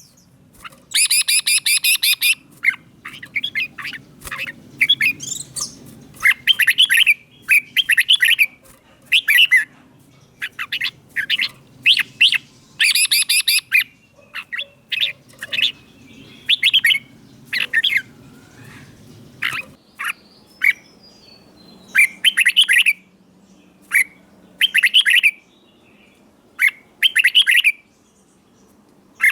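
Red-whiskered bulbul singing: short, loud, whistled phrases repeated every second or so, with a longer run of notes near the start. A faint low hum sits beneath the song.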